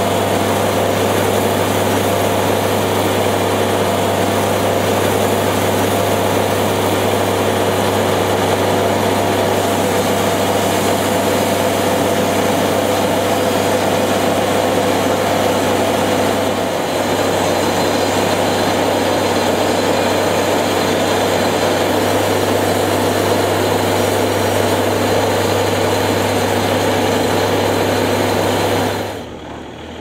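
Portable band sawmill's engine running steadily with a constant low hum, while the cutterhead travels back and has its height reset between cuts, not cutting. The level drops sharply shortly before the end.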